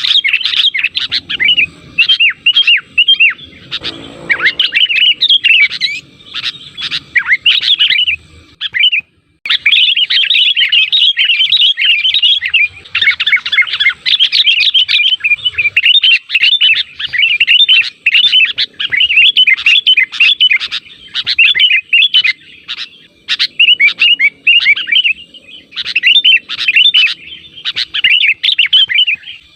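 Sooty-headed bulbuls (kutilang) calling in a rapid, continuous chatter of short chirps, a lure recording meant to draw other bulbuls to answer. The chatter breaks off briefly about nine seconds in.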